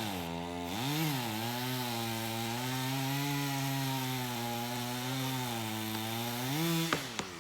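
Chainsaw cutting into a pine trunk. The engine pitch dips as the chain bites and holds steady under load, then revs up briefly and stops near the end.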